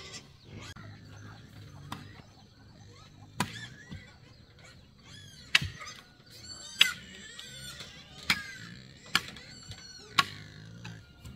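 A series of sharp knocks or blows at irregular intervals, about six in seven seconds, with high, quickly falling chirping calls between them.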